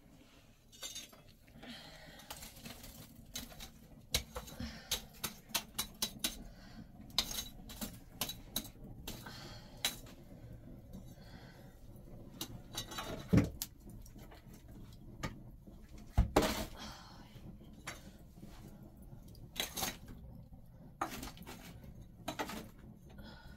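Irregular clinks and knocks of a metal cooking pot and utensils being handled at a wood fire, with two louder knocks about halfway through.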